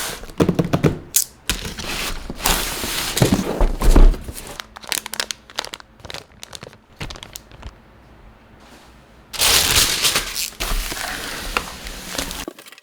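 Packaging being handled and opened: irregular crinkling and rustling with tearing, clicks and thuds, the loudest a thump about four seconds in, then a quieter stretch before more rustling from near ten seconds.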